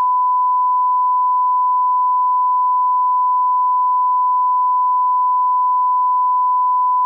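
A 1 kHz line-up test tone: one pure, steady pitch held without change, cutting off suddenly near the end.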